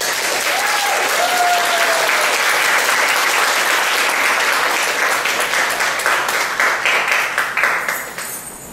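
Audience applauding, with a short cheer from one listener about half a second in; the clapping thins to scattered claps and fades out near the end.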